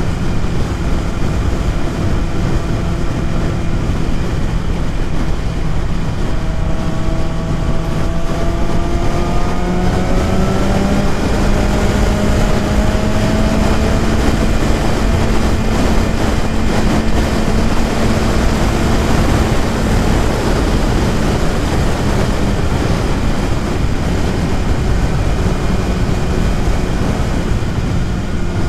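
BMW S1000RR's inline-four engine running at highway speed under heavy wind rush. Its note rises steadily for several seconds about a quarter of the way in as the bike speeds up, holds, then eases back to its earlier pitch past the middle.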